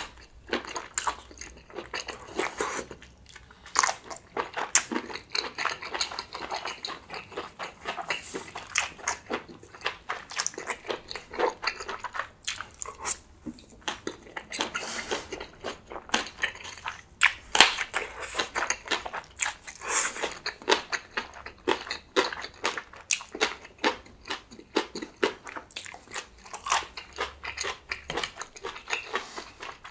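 Close-miked eating sounds: a person biting and chewing food, with many irregular wet crunches and clicks.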